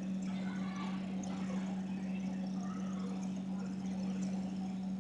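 Chicken, curd and fried onions cooking in oil in a pan, with faint sizzling and small crackles. A steady low hum runs underneath throughout.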